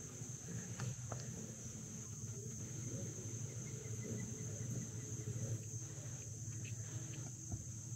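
Steady high-pitched chorus of insects droning without a break, over a low steady rumble.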